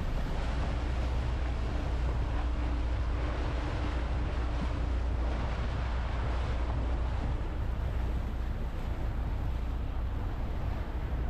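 Motorboat under way: a steady low engine rumble mixed with rushing water and wind buffeting the microphone.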